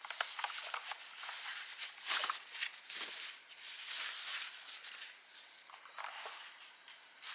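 Packaging being handled during an unboxing: uneven rustling and scraping that swells and fades, with a few light clicks.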